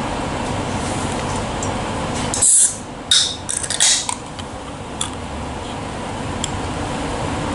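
Interior running noise of an NS ICMm electric multiple unit travelling at speed: a steady rumble. About two and a half seconds in come several short, sharp hissing bursts, and the rumble briefly drops away before building back.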